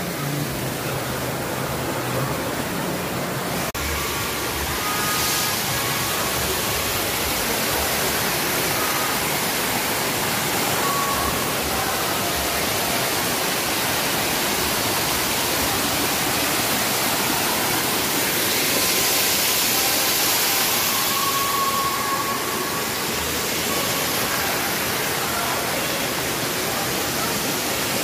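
A waterfall pouring over a rock face: a steady, even rush of falling water.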